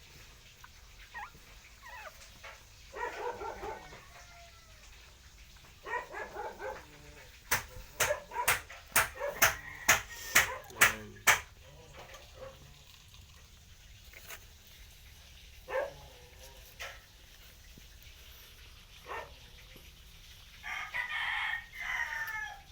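Three drawn-out animal calls, about a second each: one near the start, one about six seconds in, and one near the end. In the middle comes a quick run of about ten sharp clicks or taps.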